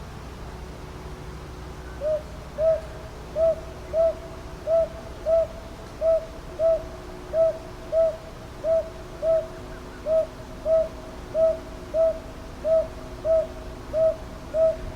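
Northern boobook (Japanese hawk-owl) giving its paired hoots, hoo-hoo, hoo-hoo, about ten evenly spaced pairs starting about two seconds in, over a faint steady low hum.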